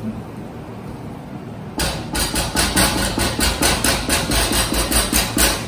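Kitchen utensil knocking rapidly against cookware, about four sharp strokes a second, starting about two seconds in and stopping just before the end.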